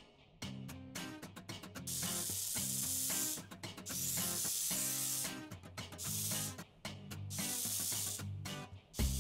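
Background music with a bass line and a steady beat, overlaid with swells of hissing noise that come and go every two to three seconds.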